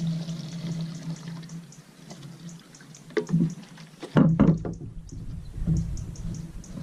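Fuel sloshing and splashing in a small plastic carton as a foam motorcycle air filter is worked through it, with a few knocks about three and four seconds in.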